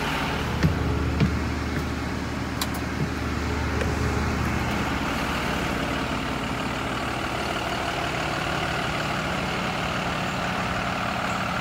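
Diesel engines of two school buses, a Thomas C2 and an IC CE, idling steadily. A few light knocks come in the first two seconds, and a deep low hum fades about four and a half seconds in.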